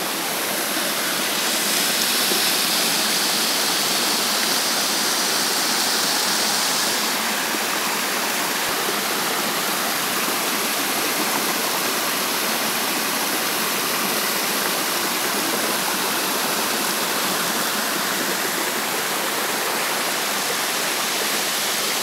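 Steady rushing of a small waterfall, water tumbling over rocks in a white-water cascade. It gets a little louder and hissier for a few seconds near the start.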